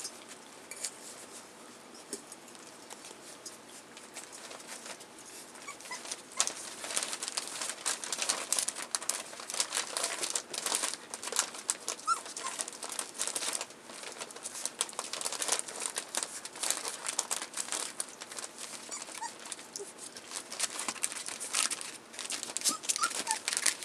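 Rough collie puppies about four weeks old eating from a flat dish while they trample newspaper. The paper crinkles and there are quick clicks of eating, busier and louder from about six seconds in, with a few brief high squeaks.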